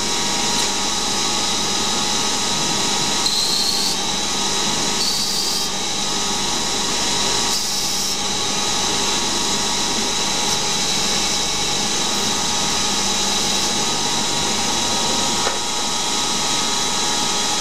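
Small benchtop CNC lathe running steadily with a constant whine while a tool cuts the spinning delrin part. Three short spells of brighter hiss come a few seconds apart.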